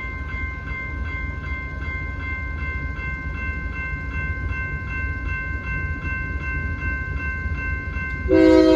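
Railroad grade-crossing bell ringing about twice a second over the low rumble of a train. Near the end a locomotive air horn comes in loudly, sounding a multi-note chord.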